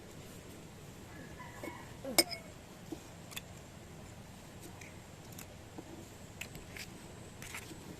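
Scattered light clicks and taps of small hard objects being handled, with one sharper clink about two seconds in that rings briefly, over a faint steady hiss.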